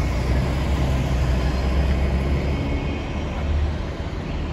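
Steady low rumble of a running vehicle engine, easing off slightly near the end.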